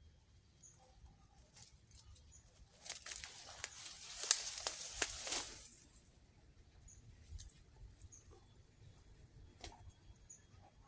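Zebra dove flapping its wings hard for about three seconds, a rapid flurry of wingbeats, over a steady faint high-pitched whine.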